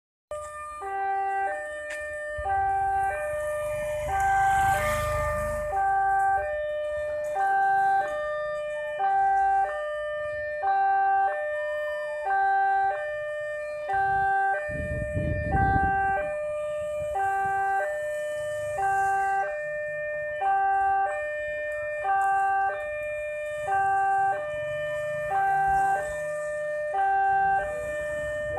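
Indonesian railway level-crossing warning alarm: an electronic tone repeating a short three-note pattern about every two seconds while the barriers are down, signalling that a train is approaching.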